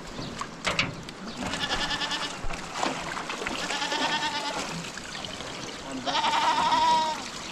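Sheep and goats bleating: three long quavering bleats, the last one the loudest, near the end. A sharp knock comes shortly before the first.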